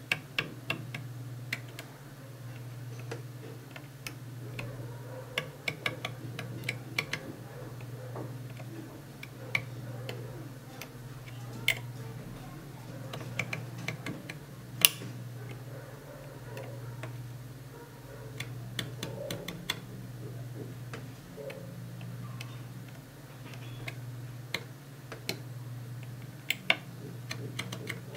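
Irregular small clicks and scratches of a sharp blade point cutting traces on a TV panel's flexible chip-on-film strip, over a steady low hum.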